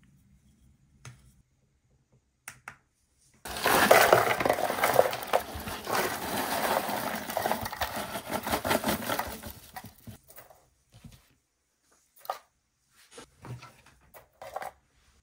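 Small hard plastic purge nuggets of waste 3D-printer filament tumbling into a cardboard box: a dense clattering rattle starting a few seconds in and lasting about six seconds, then a few scattered clicks as the last pieces drop in.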